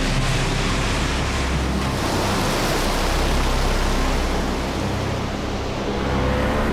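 Sea waves surging and washing, a loud, even rush of noise that eases slightly about five seconds in.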